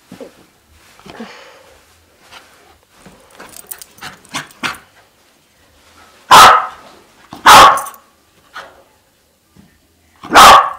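Sealyham terrier barking at a tennis ball held up for him: three loud, sharp single barks, the second about a second after the first and the third some three seconds later, with quieter short sounds from the dog before them.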